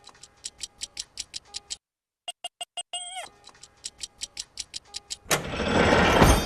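Rapid clock-like ticking, about five ticks a second, that stops briefly and resumes. A few short falling electronic tones sound about three seconds in. Near the end a loud noisy swell rises over the ticks.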